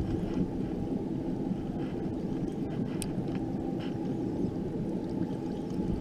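Boat's outboard motor idling steadily, a low even rumble with wind on the microphone, and a few faint clicks about halfway through.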